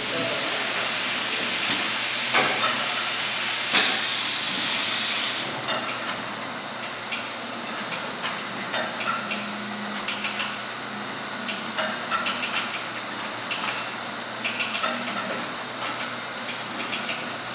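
Solutech SACT-150 automatic turntable stretch wrapper and its powered roller conveyors: a loud hiss that cuts off about five seconds in, then the rollers running with many scattered clicks and knocks as the wrapped pallet load is conveyed off the turntable.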